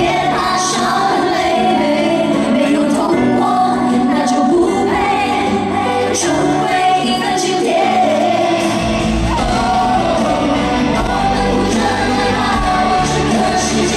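Live pop song: a female lead singer with full band backing, heard from the audience in a large arena hall. A heavy bass line comes in about nine seconds in.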